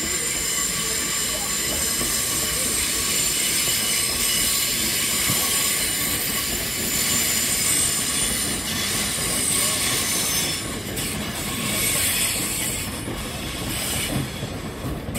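Electric multiple-unit passenger train rolling slowly over the tracks, its wheels squealing in several steady high-pitched tones over the rumble and knocks of the wheels on the rails. The squeal fades about two-thirds of the way through.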